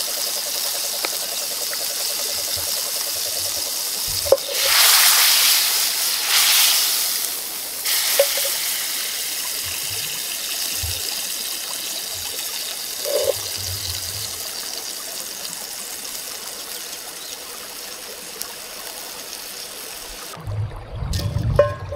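Shallot-and-garlic pan sauce bubbling as it reduces in a cast-iron skillet over a wood fire: a steady hiss with a few small pops. It grows louder for a few seconds about four seconds in, and it stops abruptly near the end.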